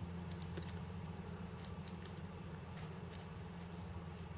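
Faint scattered clicks and light taps of hands handling the Uwell Amulet vape watch as it comes out of its box, over a steady low hum.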